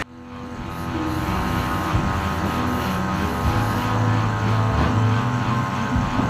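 Steady droning hum of a running machine, with a low hum that swells and drops back a few times. It fades in quickly after a sudden cut at the start.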